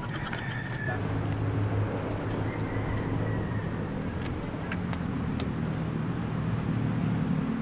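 A low, steady engine hum with a few faint clicks in the middle.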